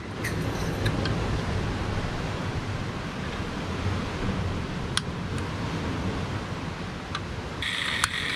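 Steady sea surf and wind, with a few small clicks as a gas canister is fitted to a portable canister camping stove. Near the end gas starts hissing out of the burner unlit, and the stove's piezo igniter begins clicking about twice a second.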